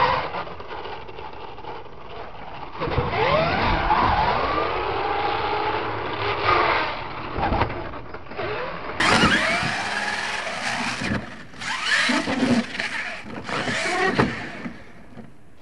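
Radio-controlled monster truck's motor revving up and down in quick rising and falling whines, with tyres scrabbling on dirt and several thuds as it lands jumps and tumbles over near the end.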